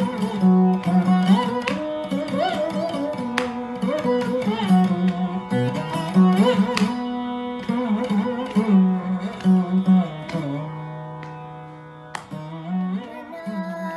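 Chitravina, a fretless plucked Carnatic string instrument, playing a melody of plucked notes with sliding pitches over a steady drone.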